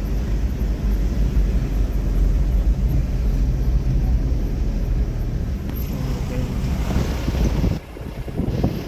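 Moving car heard from inside the cabin: a steady low rumble of engine and tyres on the road, dropping off briefly near the end.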